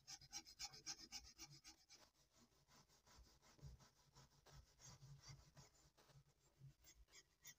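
Hand-held wire brush scrubbing rust off an old knife blade in quick back-and-forth scratching strokes, about five a second and briskest for the first two seconds, then softer and less regular.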